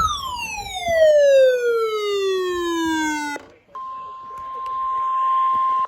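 Electronic alert tones of an Emergency Alert System broadcast. A falling electronic sweep with many overtones slides down for about three seconds and cuts off abruptly. After a brief gap a steady high single tone sounds for about two seconds, and a second falling sweep begins at the very end.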